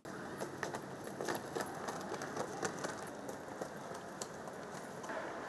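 Hard-shell wheeled suitcase rolling over ridged paving tiles: a steady rattle from its small wheels, with irregular clicks as they cross the tile joints.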